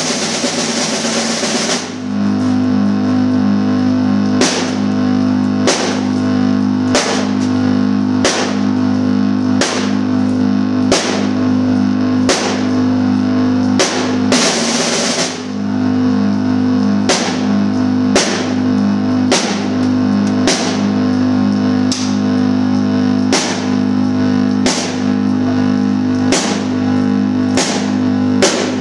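Live rock band playing: drum kit with a cymbal struck about every second and a quarter over a steady, unchanging chord from electric guitar and amplified harmonica. Longer cymbal washes come near the start and about halfway through.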